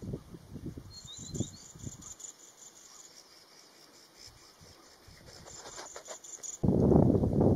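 A high-pitched, pulsing insect trill, with a few short rising bird chirps about a second in. Low uneven rumbling at first, and a sudden loud low rumble near the end.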